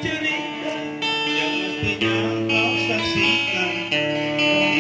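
Guitar music with strummed chords; the chords change about every second.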